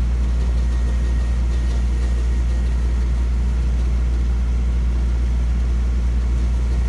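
An engine idling steadily: a low, even drone that does not change.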